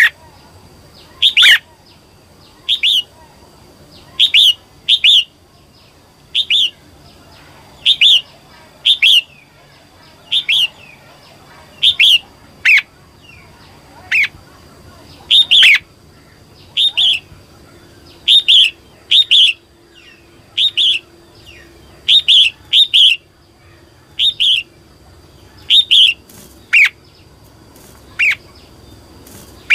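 Female red-whiskered bulbul giving short, sharp calls with a falling stroke, repeated about once a second and sometimes in quick pairs: the female's call that keepers use to rouse male bulbuls to sing.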